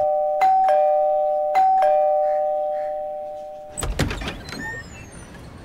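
Two-tone doorbell chime ringing ding-dong, a high note then a lower one, twice a little over a second apart, each ringing out slowly. About four seconds in, a short clatter as a wooden door is unlatched and opened.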